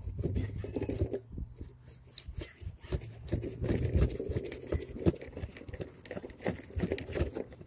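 Knife cutting through a Mayan cichlid along its backbone and ribs, with irregular crunching and scraping clicks.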